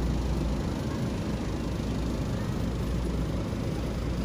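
Steady low rumble and hiss of a warehouse store's background noise, beside a refrigerated flower case.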